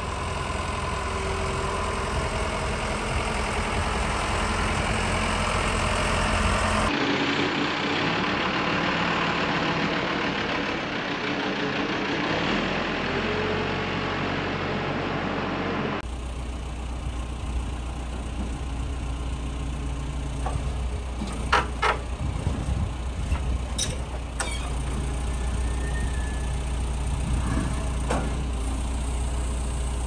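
Diesel engine of a fork-equipped machine running steadily while it carries a stacked lumber pallet, with a few sharp knocks past the middle.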